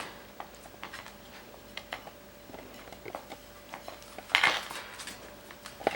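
Scattered light clicks and taps from puppies moving about their kennel, with a short hissing rustle about four and a half seconds in.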